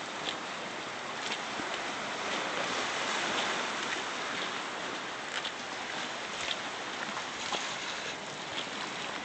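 Steady hiss of small ocean waves washing over a lava-rock shoreline, with light footsteps on the walkway about once a second.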